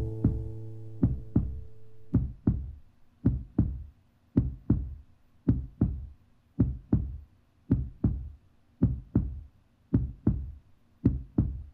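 Heartbeat effect at the end of a song: pairs of low thumps (lub-dub), about one pair a second, steady throughout. A held final chord rings under the first beats and fades out about two seconds in.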